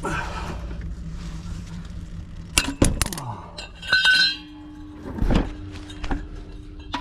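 Metal hand tools clinking as an 8 mm hex socket and wrench are worked on the oil drain plug: two sharp knocks about two and a half seconds in, then a ringing metallic clink about four seconds in, over a low steady hum.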